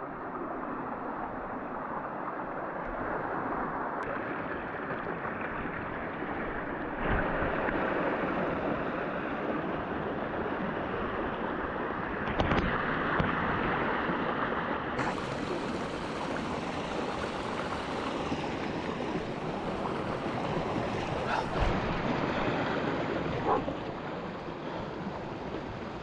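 Canyon stream rushing over rocks: a steady wash of water, with a few knocks scattered through it.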